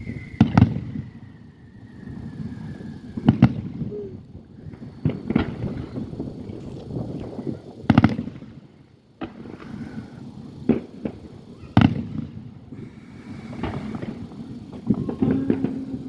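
Aerial fireworks going off: a string of loud, sharp booms every couple of seconds, about seven in all, with rumbling and crackling between them.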